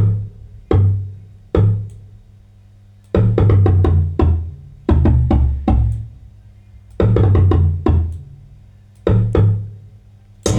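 Stripped-down section of a trap-amapiano beat: deep bass-drum hits and percussion playing in short clusters with gaps between them. The full beat comes back right at the end.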